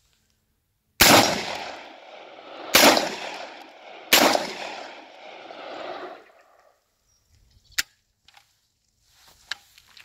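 Three 12-gauge shotgun shots from a UTAS XTR-12, each followed by a long echo, then the firing stops. Near the end there is one sharp click. Straight afterwards the shooter says the same fault has happened again, the malfunction the gun had been sent back to the factory to fix.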